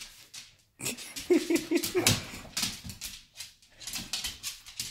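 Two dogs tussling in play on a hardwood floor: claws clicking and scrabbling on the boards, with a short, broken whining vocalization from one of the dogs about a second and a half in.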